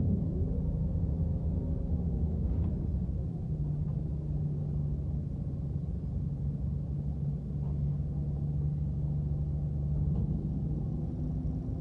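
Bus engine heard from inside the passenger cabin: a low drone as the bus slows in the first couple of seconds, then a steady idling hum while it stands, with a couple of faint ticks.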